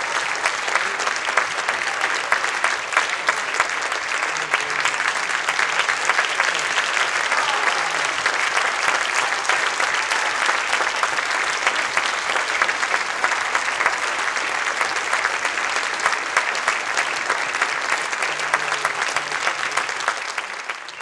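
Theatre audience applauding, a dense steady clatter of many hands clapping that fades away near the end.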